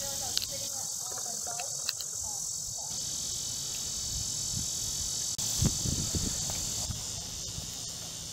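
Insects droning steadily in a high, even band, with a few low thumps about five and a half to six seconds in.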